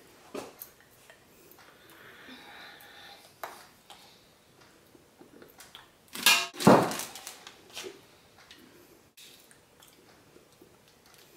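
A glass bell-jar cloche knocks as it is set down on a table about six seconds in, the loudest sound. Faint handling and rustling noises come before and after it.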